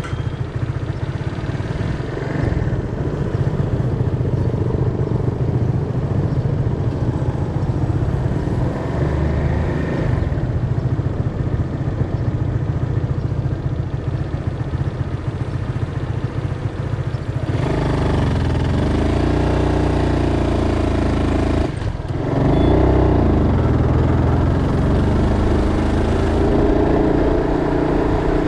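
Motorbike street traffic: a steady low rumble of engines. From about 17 seconds in, engines pass close with pitch rising and falling, broken by a short drop-out a few seconds later.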